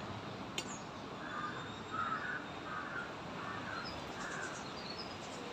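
A crow cawing: a run of five or six harsh calls over about three seconds, above steady outdoor background noise.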